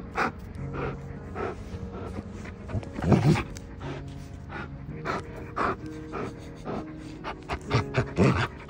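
Bernese mountain dog panting and huffing while tugging on a rope toy, over background music with sustained notes. Two louder bursts from the dog come about three seconds in and again near the end.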